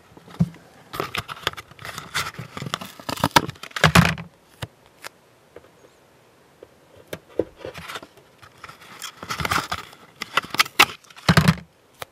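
Hands handling small plastic model parts and tools on a workbench: two spells of clattering, clicking and rustling, each a few seconds long, with a heavier knock at the end of each, as something is set down.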